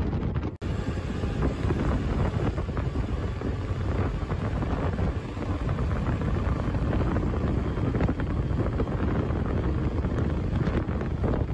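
Wind rushing over the camera microphone of a motor scooter riding at highway speed, with the scooter's running and road noise beneath, an RKS Newlight 125 Pro. It breaks off briefly about half a second in, then carries on steadily.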